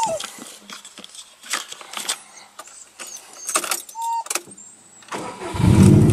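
A dog's whine falling away, then a few sharp clicks and knocks inside a car and one more short whine. About five and a half seconds in, loud background music with a heavy bass starts.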